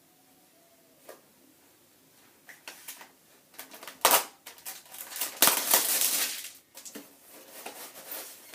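Packaging being handled as an airsoft gun is unpacked: irregular rustling, crinkling and scraping, with a single click about a second in, the loudest handling about four seconds in and again for about a second from five and a half seconds.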